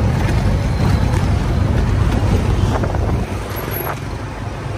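Tuk-tuk ride heard from the open passenger cab: the small engine running steadily with road and wind noise, easing slightly about three seconds in.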